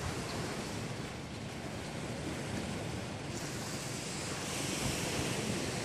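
Steady rushing of surf and wind, with wind buffeting the microphone.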